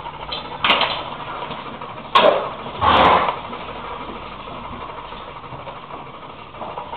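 Hoof rasp scraping a draft horse's hoof in three short strokes during a trim, over a steady background hum.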